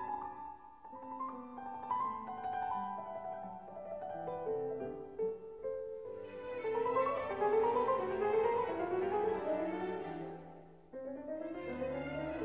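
Background music in a classical style: piano with bowed strings, playing runs of rising notes through the middle, with a brief drop in level shortly before the end.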